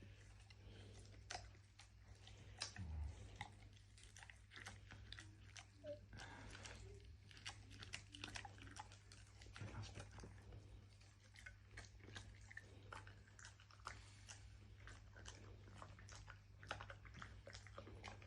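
Cane Corso puppy chewing a banana: faint, irregular wet smacking and chewing clicks.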